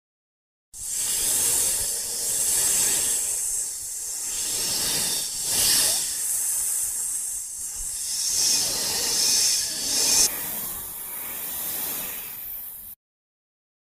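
A long, rough hiss that swells and fades for about twelve seconds, its highest part dropping away about ten seconds in.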